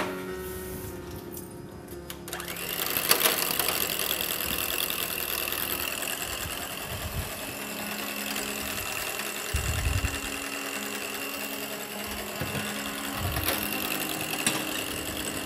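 Electric stand mixer running steadily with its beaters turning in the bowl, the motor starting about two and a half seconds in.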